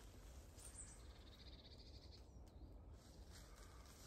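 Near silence: quiet woodland ambience with a faint low rumble, and a faint, high bird call about a second in that lasts about a second.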